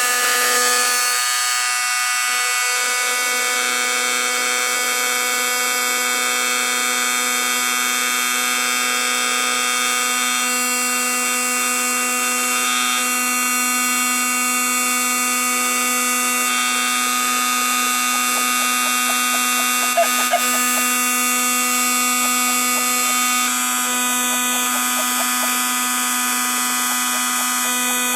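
Construction heat gun running steadily, its fan motor giving a constant electric whine as it blows hot air into kindling to get a campfire going. Two brief sharp pops come about two-thirds of the way through.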